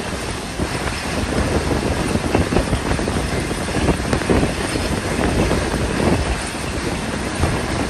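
Passenger train running on the track, heard from on board: steady rumble and irregular rattling clatter of wheels and carriage, with wind noise.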